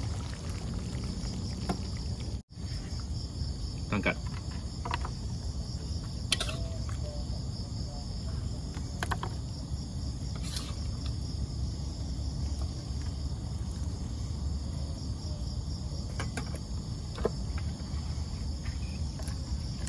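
A steady high-pitched insect-like trilling over a low hum, with a few light clicks and knocks scattered through and a brief dropout about two and a half seconds in.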